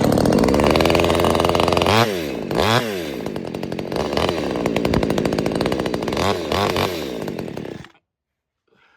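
Dereal chainsaw running at speed, its pitch dipping and climbing back twice about two to three seconds in, then stopping suddenly about eight seconds in.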